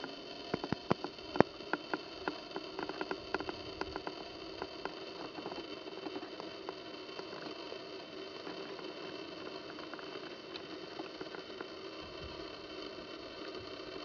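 A run of sharp, irregular clicks and taps over the first few seconds, over a steady hum and hiss.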